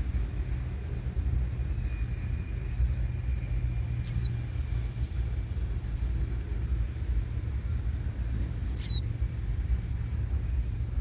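A steady low rumble, with three short, high, falling peeps from red-wattled lapwing chicks about 3, 4 and 9 seconds in.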